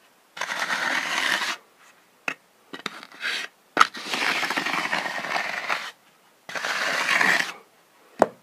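Hand concrete float scraping over wet, freshly poured concrete in several long strokes, with a few short sharp knocks between them, the sharpest near the end.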